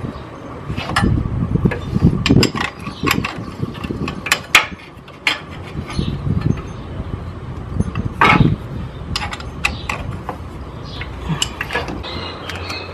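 Hand tools clicking, clinking and knocking against metal as the timing belt tensioner on a diesel engine is pushed down and tightened. The clicks come at an irregular pace, with one louder knock about eight seconds in.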